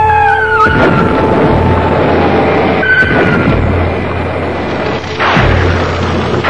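Dramatic film music with several deep booms and a heavy rumble, explosion sound effects used to depict destruction.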